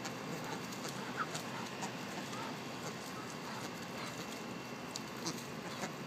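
A flock of American white ibises foraging close by: scattered soft ticks and rustles of bills and feet in grass and dry leaves over a steady background hiss.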